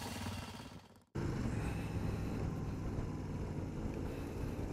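A louder sound fades out over the first second, followed by a short gap. Then a motorcycle engine runs steadily under way, with wind noise, heard from the rider's seat.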